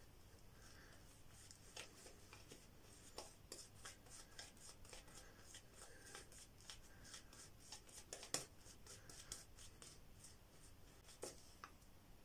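A Vielong horsehair shaving brush working soap lather over stubble on the face, making faint, quick bristle scratches, several a second, with one louder stroke about eight seconds in.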